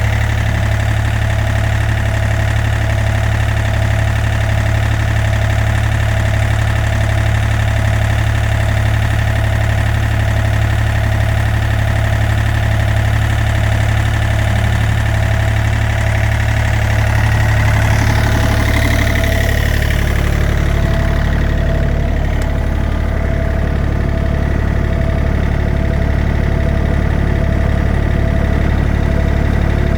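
Small Yanmar diesel engine of a John Deere 35D mini excavator idling steadily. About 18 seconds in the note shifts and is briefly a little louder, then it settles back to a steady, duller running sound.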